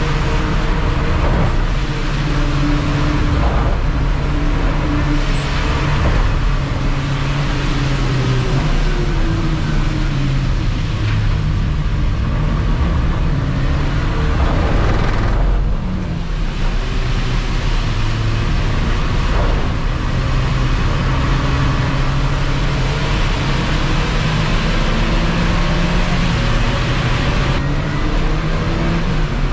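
Ford Ka race car's engine heard from inside the stripped cabin, revving up and down through the gears at racing speed, over steady tyre and road noise on wet tarmac. About halfway through the engine note drops briefly, as on a lift or gear change, then picks up again.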